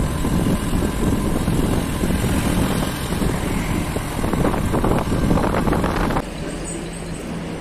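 Vehicle in motion on a highway: engine and road noise with wind buffeting the microphone. About six seconds in it drops to a quieter, steady engine hum.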